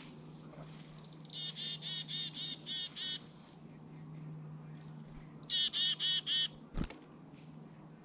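Chickadee giving its chick-a-dee call twice: each call opens with a few very high thin notes and runs on into a quick series of repeated lower 'dee' notes, about a second in and again past the middle. A single sharp knock follows the second call.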